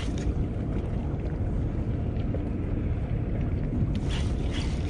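Steady low rumble of wind buffeting the microphone, with a few faint scratchy ticks coming in about four seconds in.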